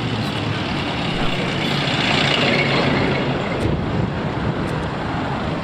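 Road traffic going by close at hand, with one vehicle growing louder and passing about two to three seconds in.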